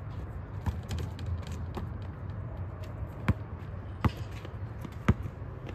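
A basketball being dribbled: sharp bounces, a few faint ones at first, then stronger ones about a second apart in the second half, over a steady low rumble.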